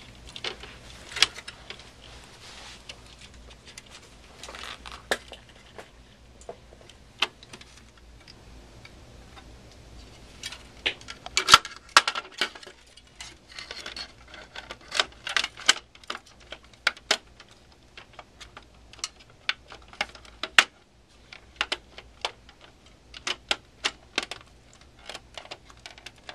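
Irregular clicks, taps and rattles of a plastic PC system-fan housing and its connector being handled and pressed into place in a steel desktop case. A cluster of louder knocks comes around halfway through, and one sharp knock follows a few seconds later.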